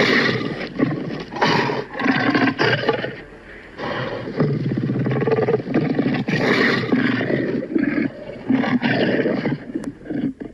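Cartoon alligator growls and roars, a string of deep calls one after another.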